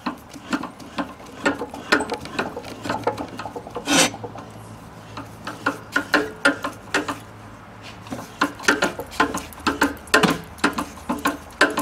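A 10-24 tap, held in a drill press and turned slowly by hand, cutting threads into an oiled hole in cast iron: a run of irregular small clicks and scraping as the tap bites, with one sharper click about four seconds in.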